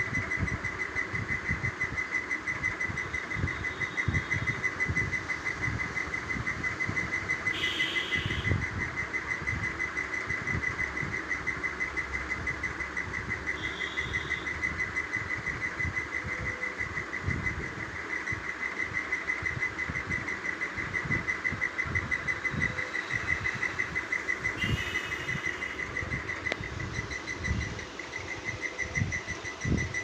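Parakeet chicks giving short squawking calls three times, about a quarter of the way in, near the middle and near the end. Underneath runs a steady high-pitched pulsing drone with irregular low thumps.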